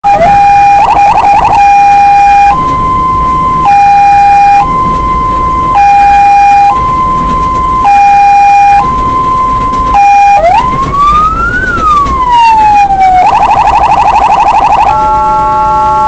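Electronic emergency-vehicle siren, very loud, cycling through modes: a two-tone hi-lo alternating about once a second, then a single long rising and falling wail, then a fast yelp. About a second before the end it gives way to a steady multi-tone horn.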